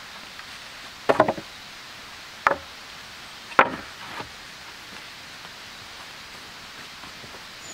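Thin split wooden boards knocking against each other as they are stacked by hand: a quick cluster of knocks about a second in, then a few single knocks, then quiet for the second half.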